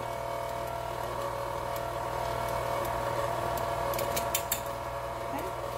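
KitchenAid Classic stand mixer running steadily, its wire whip turning through thick cornbread batter, a steady motor hum. A few sharp clicks about four seconds in.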